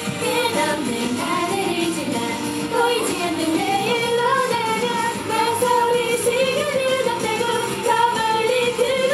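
Female vocalists singing a pop song into handheld microphones over a backing track, with a sung melody that runs on without a break.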